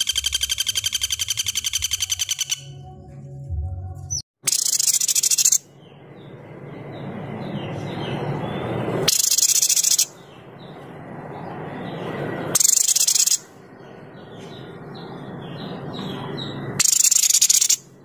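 Songbird calls: a fast, even trill for the first couple of seconds, then four harsh, high, rasping bursts about a second long, spaced roughly four seconds apart, with faint chirps over a background hiss that swells between them.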